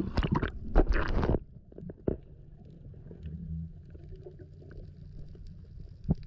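Splashing and bubbling as a freediver ducks under, cutting off after about a second and a half into muffled underwater sound. A low steady hum runs through it, the vibration of the cargo ship loading at the pier carried through the water, with scattered faint clicks.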